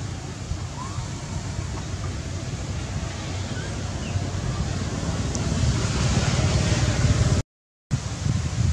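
Wind buffeting the microphone outdoors, a steady rushing rumble that grows louder toward the end and cuts out for a moment near the end.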